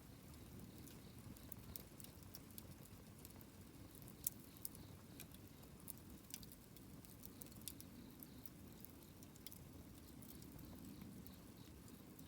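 Wood campfire crackling: scattered small pops and snaps, the sharpest a little past four seconds in, over a faint low rumble.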